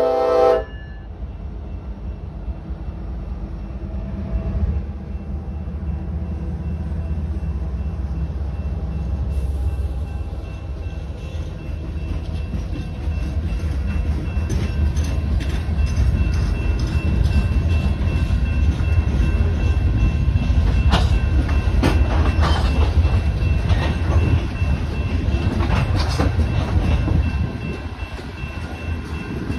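A loaded coal train passing a grade crossing. The lead EMD SD70ACe's horn cuts off about half a second in, then the locomotives rumble past. The loaded coal gondolas follow, their wheels clicking and knocking over the rails, with the clicks coming thicker and louder from about ten seconds in.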